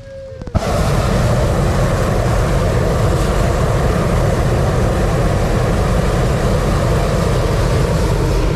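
Hot air balloon propane burner firing one long, steady blast into the envelope during hot inflation. It cuts in suddenly about half a second in and holds at an even level.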